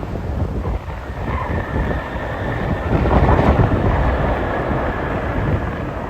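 Qantas Boeing 787-9 jet engines on arrival, a steady high whine over a broad engine rush that swells about three seconds in, with heavy wind buffeting the microphone.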